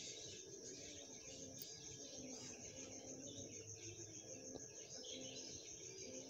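Faint, steady, high-pitched insect trilling with occasional bird chirps.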